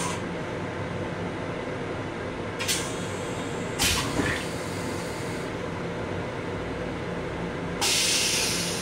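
Long Island Rail Road M7 electric railcar heard from inside its restroom: a steady running rumble with a low hum, broken by three short hisses in the first half and a louder, longer hiss that starts near the end and slowly fades.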